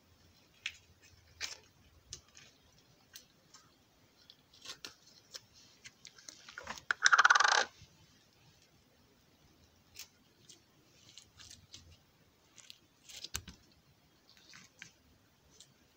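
Slime being squeezed and worked in the hands: scattered small clicks and squishes, with one louder, noisier squelch lasting about a second midway through.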